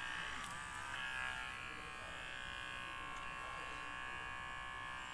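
Electric hair clipper running with a steady buzz as it shaves hair close to the scalp.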